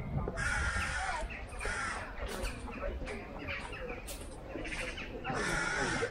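Crows cawing: several harsh calls about half a second long, the strongest near the start and near the end.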